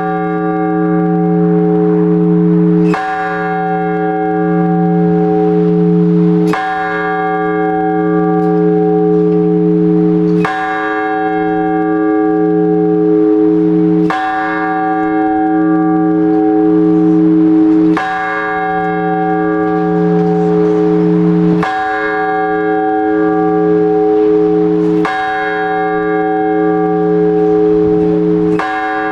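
A single large Orthodox church bell struck slowly and evenly, about one stroke every three and a half to four seconds, eight strokes in all. Each stroke rings on with a deep wavering hum under the next. This is the blagovest, the measured single-bell call to the all-night vigil.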